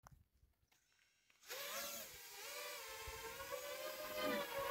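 A 5-inch FPV quadcopter's four brushless motors and propellers spin up suddenly about a second and a half in, after near silence. They then run with a steady, slightly wavering whine as the drone starts to lift off and move away.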